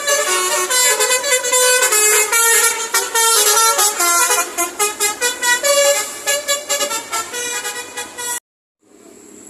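Telolet bus horn, a Basuri-type multi-trumpet musical horn, playing a rapid melody of short, quickly changing notes. It cuts off abruptly near the end.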